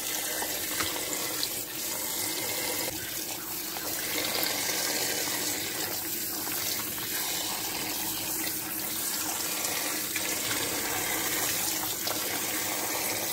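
Kitchen tap running a steady stream of cold water into a pot of water full of salted fish, splashing over the fish as a hand turns them. The fish are being soaked to draw out the salt before drying.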